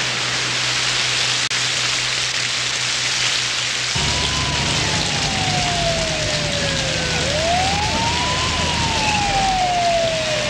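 Steady hiss of heavy rain with a low hum beneath it. About four seconds in, a siren starts wailing, sweeping up and falling slowly, two cycles.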